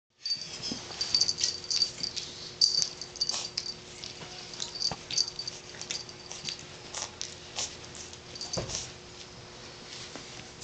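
Blue French bulldog puppies play-fighting, giving many short high-pitched squeaks and yips, most often in the first few seconds, with light scuffling clicks.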